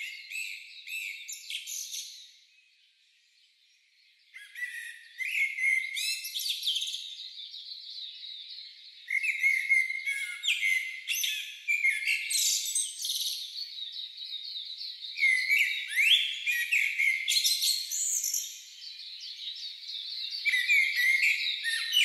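House sparrows chirping, many short chirps overlapping in a busy chatter, with a pause of about two seconds near the start.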